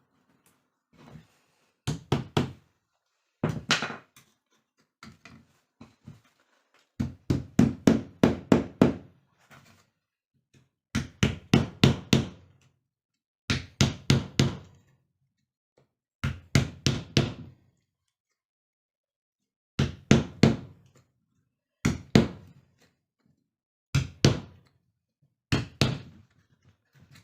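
Hammering during repair work on a rattan chair: sharp knocks in quick bursts of three to eight strokes, with short pauses between bursts.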